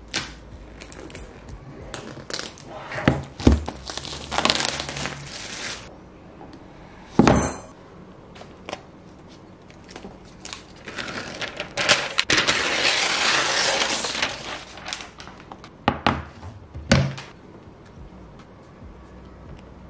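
Unboxing a MacBook Pro's cardboard box: knocks and taps as the box is handled on a wooden table, with crinkling and tearing of the packaging. A longer rustling tear comes a little past the middle.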